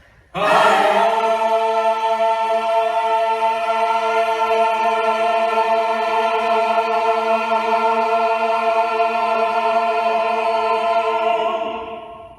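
Music: a single sustained choir-like chord that starts abruptly, holds without change for about eleven seconds, then fades out.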